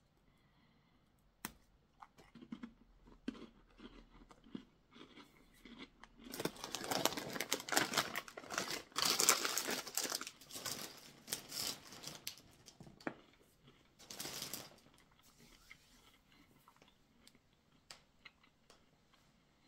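Crinkling of a plastic snack bag and crunching of dry, crisp treccine (braided fennel-seed taralli) being eaten. Sparse small clicks at first, a dense crackly stretch from about a third of the way in to past halfway, and one short louder burst near three-quarters through.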